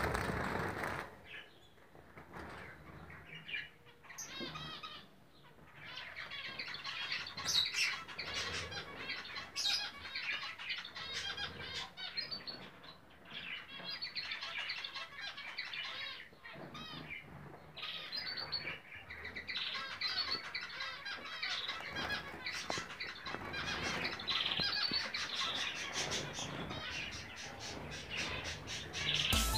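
Many caged finches, zebra finches among them, chattering with dense overlapping short calls, with wings fluttering.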